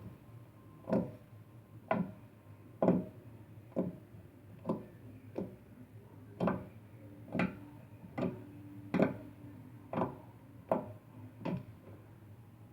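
A series of sharp taps or knocks, roughly one a second but not quite evenly spaced, each with a short ring after it.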